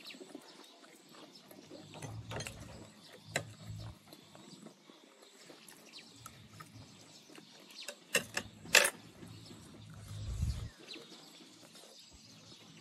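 Eating sounds: chewing crispy fried meat, with scattered small clicks and a cluster of three sharp clicks about two-thirds of the way through.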